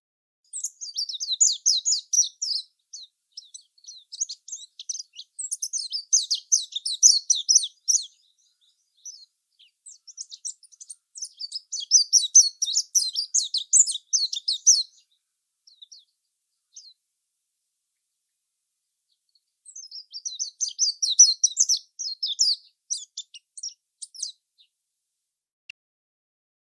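Small bird chirping rapidly in high, quick twitters. The chirps come in three bursts, each lasting several seconds, with complete silence between them.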